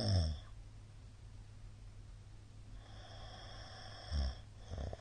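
A middle-aged man snoring in his sleep: a loud snore right at the start, then a drawn-out breath about three seconds in that ends in another snore, and a shorter one near the end.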